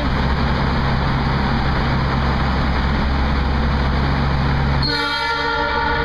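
Steady car road noise in a tunnel, then about five seconds in a car-mounted Nathan triple-tone air train horn (two of its horns) starts blasting a steady multi-note chord that holds to the end.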